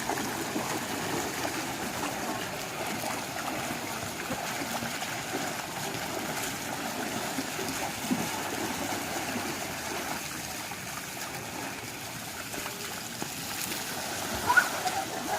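Steady running water, trickling and splashing.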